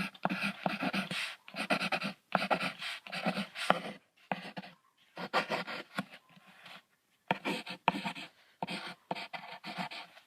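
Moose calling: a series of short grunts coming in quick runs, with brief pauses between them.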